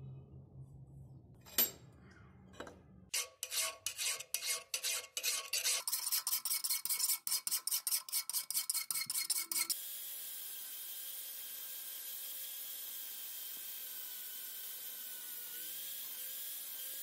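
A sharp knock about a second and a half in, then a hand file rasping on the steel axe head in quick back-and-forth strokes. From about ten seconds in an angle grinder runs steadily against the axe head, a hiss with a high whine.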